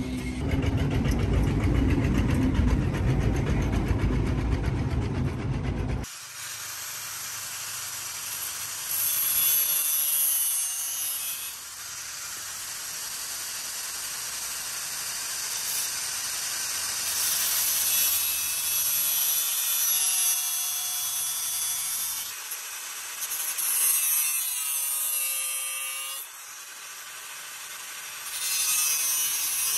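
A handheld angle grinder grinding along the teeth of a steel saw blade: a high, hissing grind that swells and eases over several passes, its motor pitch gliding as it is loaded. Before it, for the first six seconds, a loud low rumble that cuts off sharply.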